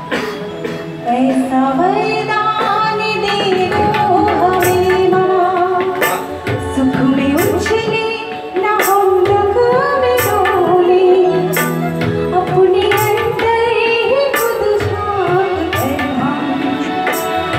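A woman singing a Hindi devotional bhajan into a microphone, with a gliding, ornamented melody, accompanied by dholak and tabla drumming in a steady rhythm of sharp strokes.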